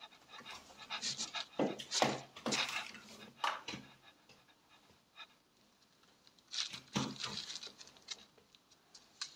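German shepherd dog panting in quick breaths, with a pause of a couple of seconds midway.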